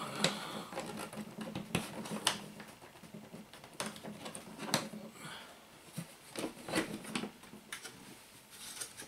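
Hard plastic tool case being unlatched and opened: irregular clicks and knocks from the plastic latches and the lid.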